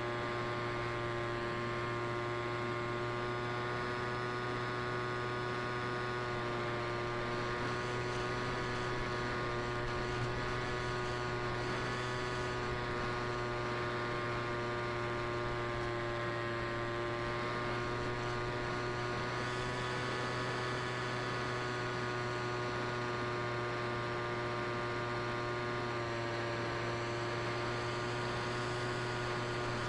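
Electric motor and propeller of a Versa flying wing in cruising flight, picked up by the onboard camera: a steady droning hum with a stack of whining overtones, shifting slightly in pitch a few times.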